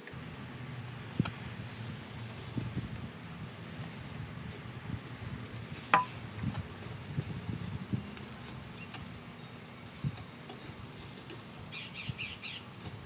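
Steady low hum with faint scattered ticks and clicks, one sharper click about six seconds in, and a short run of bird chirps near the end.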